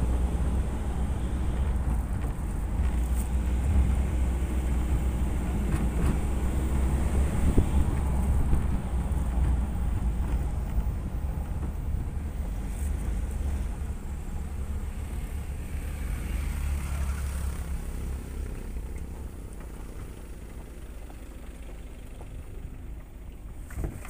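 Pickup truck on the move: a steady low rumble of engine, tyres and wind, growing quieter through the second half.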